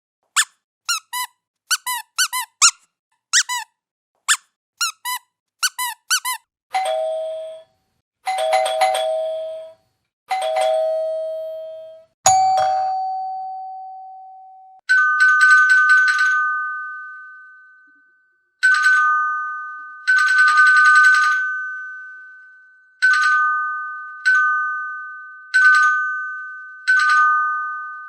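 A squeaky toy squeaked in quick short bursts, then doorbell chimes: a few two-note rings, a single ringing tone, and then a two-note ding-dong repeated again and again, each ringing out and fading.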